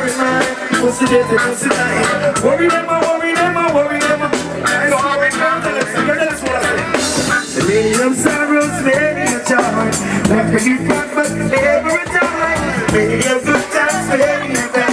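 Live reggae band music with a male singer's vocals over a steady drum beat.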